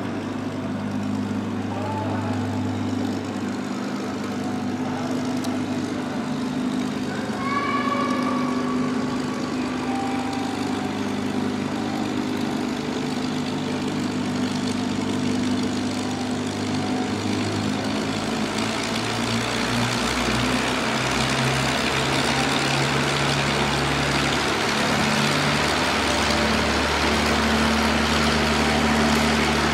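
Packard Merlin V-12 of a P-51 Mustang running at low speed on the ground, a steady idle with the propeller turning; the engine speed rises a little about two-thirds of the way through.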